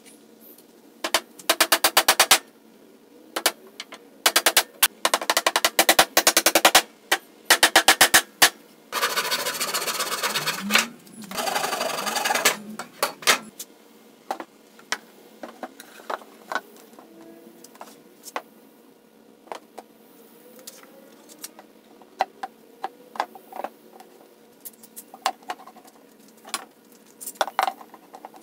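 Cordless drill/driver working pallet wood: four runs of rapid, even clicking early on, then two longer stretches of the drill running. After that come scattered knocks and clicks of boards and clamps being handled.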